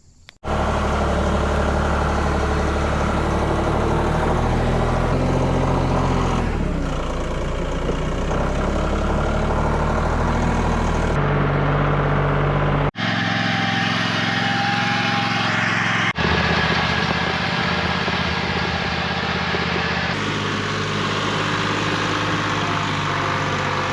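Massey Ferguson tractor engine running steadily, its pitch and tone shifting at a few abrupt cuts between shots.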